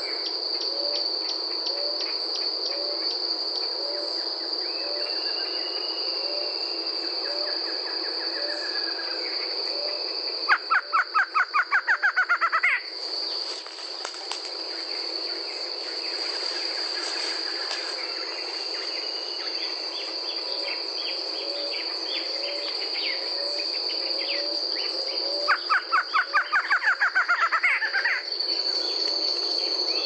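Barred antshrike (Thamnophilus doliatus) singing twice, each song a fast run of about a dozen loud repeated notes lasting about two seconds. A steady high insect trill runs underneath.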